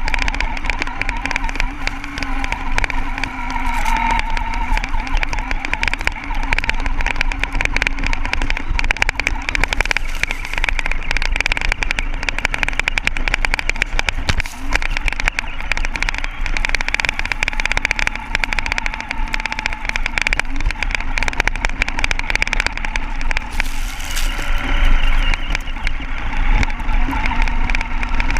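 Onboard sound of a radio-controlled buggy running across sand: a steady motor and drivetrain whine that shifts slightly in pitch with speed, over a constant crackle of clicks and rattles from the chassis.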